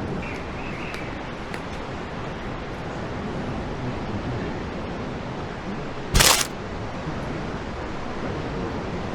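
Steady rushing noise of sea surf on a beach, with one short, loud burst of noise about six seconds in.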